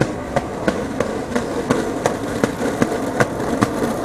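Skateboard rolling on hard ground: a steady rumble from the wheels, with a sharp click about three times a second.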